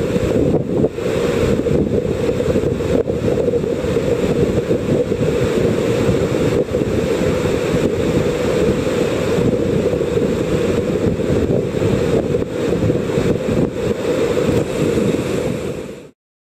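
Steady roar of a large whitewater rapid, with wind buffeting the microphone; it cuts off abruptly near the end.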